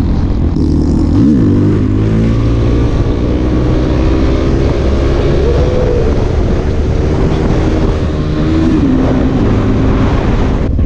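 Suzuki DR-Z400SM's 400 cc single-cylinder four-stroke engine running hard as the bike accelerates up to highway speed, the engine note dipping and climbing briefly about a second in and rising again near the middle, under a steady rush of wind noise.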